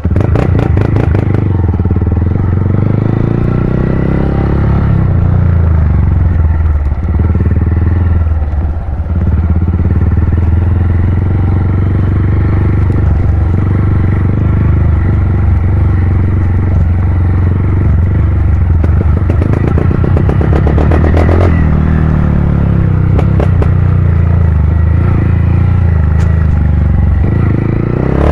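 Honda CG 160 Cargo's single-cylinder four-stroke engine running through a Pro Tork Competition aftermarket exhaust, a loud, deep exhaust note. It mostly holds steady at idle, with the revs rising and falling a few times.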